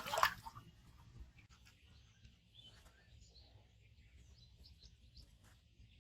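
Small birds chirping faintly in short, scattered calls over a low outdoor background, after a brief loud noisy burst in two parts right at the start.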